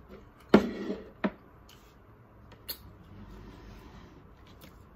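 Handling noise close to a laptop's built-in microphone as things are shifted to move closer: a short loud scrape about half a second in, then a couple of sharp clicks and a low rustle.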